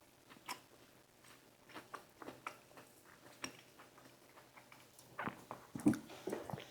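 Close-miked chewing and mouth sounds of a person eating: soft, scattered wet clicks and smacks, a little louder near the end.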